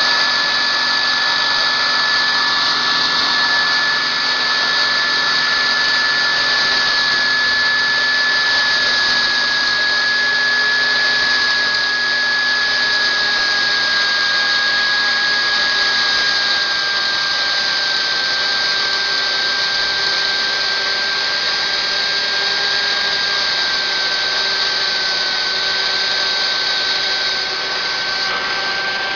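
Small belt-driven electric animal feed crusher running with a steady high-pitched whine that sinks slowly in pitch while corn kernels are fed into its hopper.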